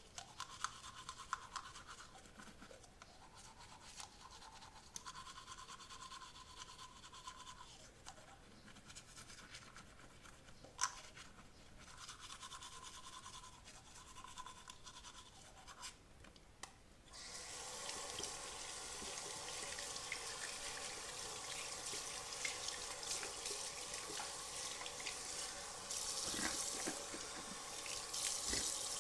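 Teeth being brushed with a toothbrush: scrubbing strokes broken by short pauses, with a few clicks. About seventeen seconds in, a louder steady rush of a tap running into a sink begins.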